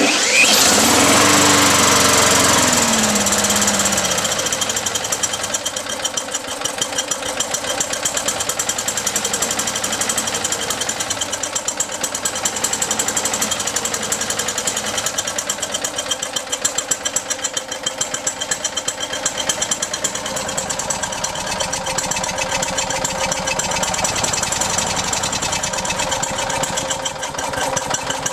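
Craftsman 4.5 lawn mower engine, fed on diesel vapor from an ultrasonic transducer, catching abruptly and then running rough with a fast, uneven beat; a falling tone slides down over the first few seconds. It runs unevenly because the single transducer makes too little vapor.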